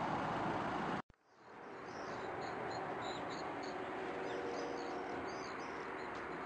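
Steady roadside noise that cuts off abruptly about a second in. Then a quieter steady outdoor hum, with small birds chirping faintly and high over it.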